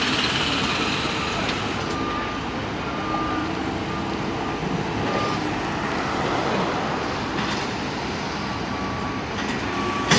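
Road traffic and engine noise at a roadworks site, with a heavy vehicle's reversing alarm beeping on and off, short single-tone beeps about every second or two.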